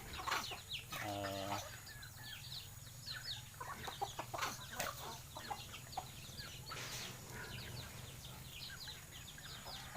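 A flock of native chickens calling, with many short, high, falling peeps and clucks scattered throughout and a longer hen call about a second in.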